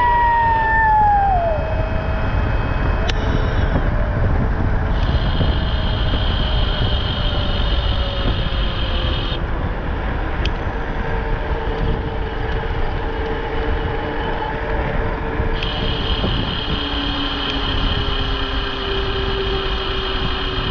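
Wind rumbling over the microphone during an e-bike ride. A high steady whine cuts in and out twice, and slow, gently falling tones run underneath.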